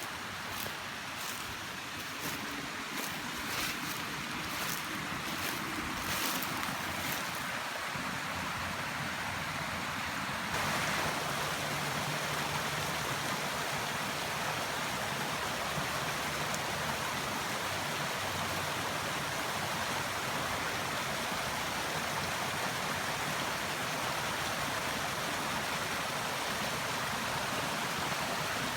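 Steady outdoor rushing noise with no clear pitch, of the kind made by running water or wind, with light crackles over the first several seconds; it steps up a little in loudness about ten seconds in and then holds steady.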